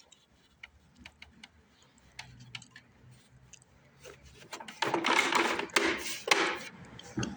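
Handling of a vacuum cleaner filter and its plastic housing: scattered light clicks and taps, then louder scraping and rustling from about five seconds in as the filter is pushed into place.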